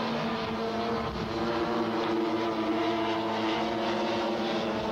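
Petrol engines of a large radio-controlled scale model aircraft running steadily in flight, a droning buzz whose pitch wavers slightly.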